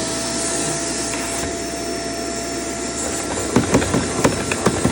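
Shark vacuum cleaner running at full speed with a steady whine, switched on to check its suction while a clog is being cleared. A few sharp knocks and clicks sound near the end.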